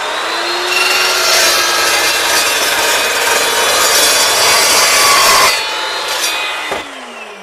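Evolution S355 14-inch cold-cut saw's motor spinning up with a rising whine, then its toothed blade cutting through steel for about five seconds. Near the end the motor is switched off and winds down with a falling whine.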